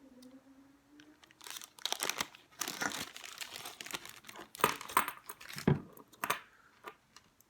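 Hands handling a small model locomotive and its parts on a workbench: irregular crinkling rustle with small sharp knocks, stopping near the end.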